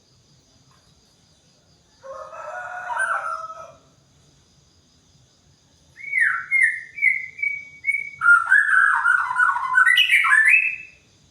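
White-rumped shama singing: a short phrase about two seconds in, then from about six seconds a run of repeated whistled notes that leads into a fast, varied phrase.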